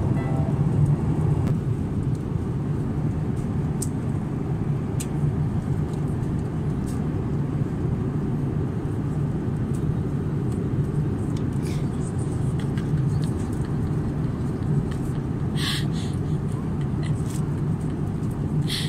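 Airliner cabin noise in cruise: a steady low drone of engines and airflow, with a couple of brief rustles near the end.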